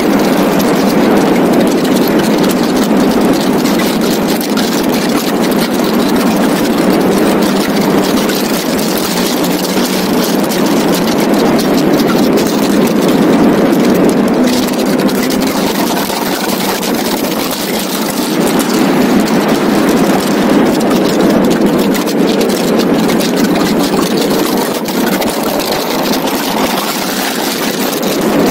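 Donkervoort D8 GTO RS's turbocharged Audi five-cylinder engine running at speed on track, heard from the open cockpit under a heavy, steady rush of wind on the microphone.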